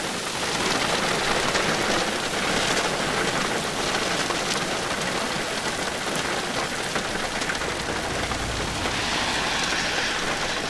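Heavy rain falling steadily: a dense, even hiss with the fine tapping of drops striking close by.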